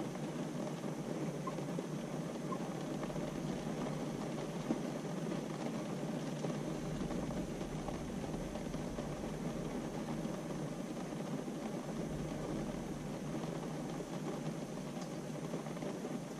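A steady, even hiss with no separate events in it.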